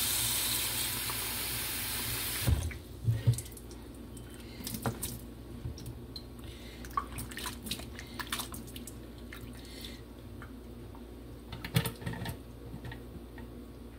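Kitchen tap running into a bowl of ogbono seeds in a metal sink, stopping about two and a half seconds in. After it come scattered knocks and light clatter as the bowl is handled and the wet seeds are scooped into a blender jar, with the sharpest knocks just after the tap stops and again near the end.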